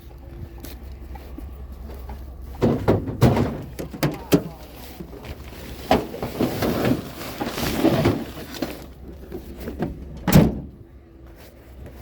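Knocking and clattering, then rustling, and near the end a vehicle door shutting with one heavy thud.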